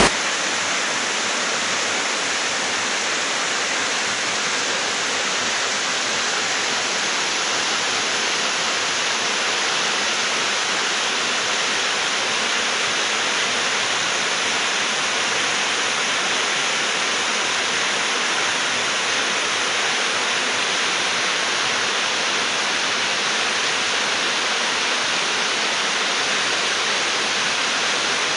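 Waterfall: a steady, even rush of falling water cascading over rock, with no change in level.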